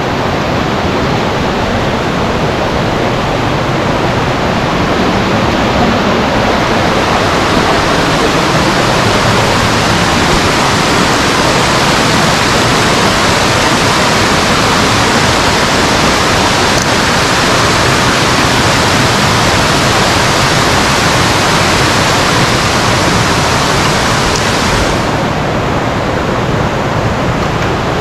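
Rushing water of a mountain stream or waterfall, a loud, steady hiss that turns brighter from about six seconds in until near the end.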